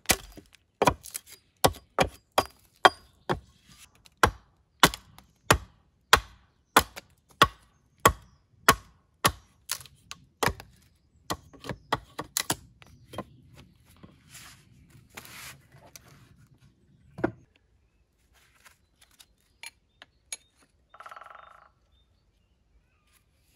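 Hatchet chopping into the side of a wooden pole stood on a log chopping block, hewing chips off it: steady strikes about one every half second or so, then quicker and uneven, thinning to a few scattered knocks and stopping about two-thirds of the way in.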